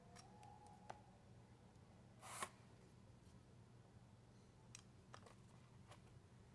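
Near silence with a low steady hum, broken by a few faint clicks and one short rustle about two seconds in from hands handling plastic drinking straws.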